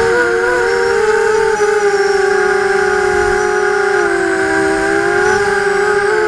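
ImmersionRC Vortex FPV racing quadcopter's brushless motors and propellers whining, picked up by its onboard camera. The whine is made of several close tones whose pitch wavers with the throttle and dips lower for a stretch about three to five seconds in.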